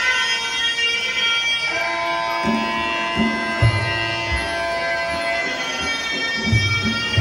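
Traditional Muay Thai ring music (sarama): a reedy, bagpipe-like oboe playing held, wavering notes, joined by low drum beats about two and a half seconds in.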